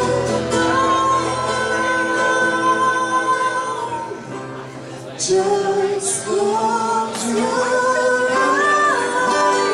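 A woman singing a slow song live over two acoustic guitars, with long held notes; the music drops quieter for a moment about four seconds in.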